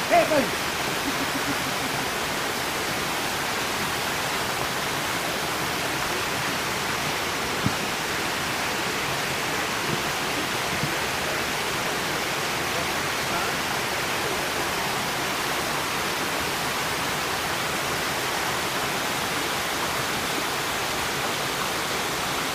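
Small stream cascading over rocks, a steady, even rush of water.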